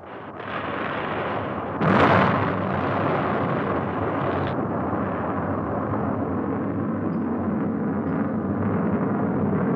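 Atlas rocket booster exploding: a rushing noise builds, a sudden loud blast comes about two seconds in, and a steady rumbling roar from the fireball follows.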